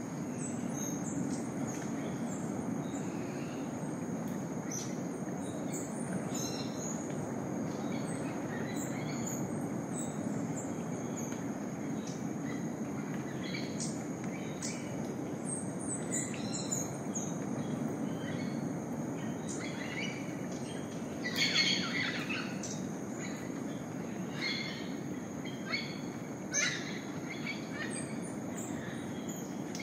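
Tropical rainforest dawn ambience: scattered bird calls and chirps over a steady low rushing noise and a continuous high-pitched insect drone. The bird calls grow busier later on, the loudest coming about two-thirds of the way through.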